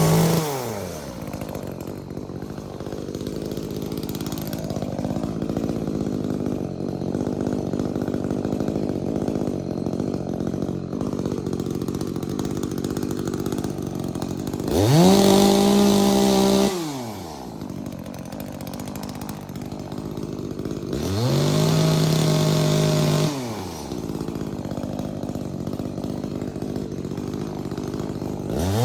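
A 16-inch chainsaw held at a steady high rev at the start, then dropping to a low idle for most of the time. It is revved up three more times for about two seconds each: about halfway through, a few seconds later, and again at the very end.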